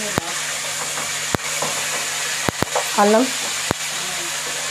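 Oil sizzling steadily in an aluminium kadai as a tempering of dals, peanuts, cashews, chillies and curry leaves fries, with the stirring spoon clicking sharply against the pan five times. A brief voice sound comes about three seconds in.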